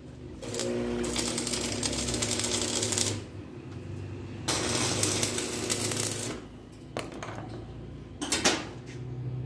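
Electric arc welding on a steel motorcycle sidecar frame: two welding runs of steady crackling, each about two to three seconds long, with a short sharp burst of arc noise near the end. A steady low hum runs underneath.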